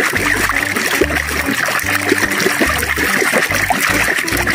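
A hand sloshing and splashing through thick, foamy water in a tub, with a background music bass line stepping between low notes underneath.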